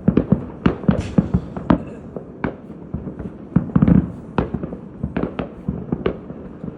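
Fireworks going off in a rapid, irregular string of sharp bangs, with a dense cluster of bangs a little before four seconds in.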